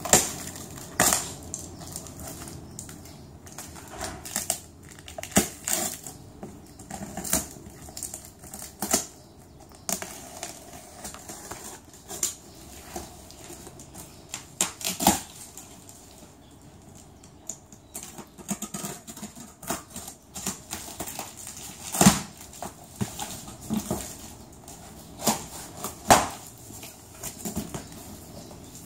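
A plastic-wrapped, taped cardboard box being pulled open by hand: plastic wrap and tape crinkling and tearing and cardboard flaps rubbing, in irregular crackles with a few sharper knocks.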